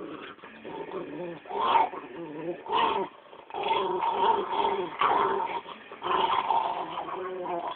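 Pug growling and whining in play, a run of uneven pitched vocal bursts, each lasting up to about a second.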